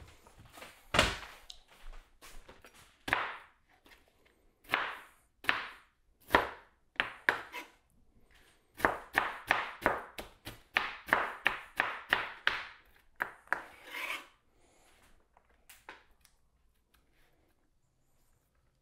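Kitchen knife chopping on a cutting board: a few spaced knocks, then a quicker run of about three strokes a second that stops about 14 seconds in.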